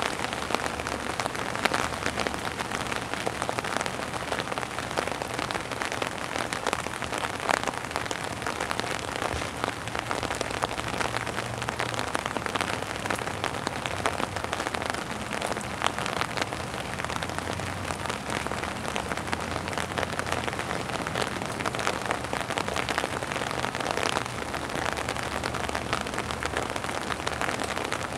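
Pouring rain falling on a wet, puddled hard surface: a steady hiss of rain dotted with many individual drop splashes.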